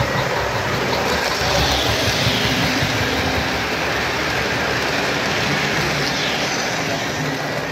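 Model train running along layout track, a steady noisy rumble of wheels and motor.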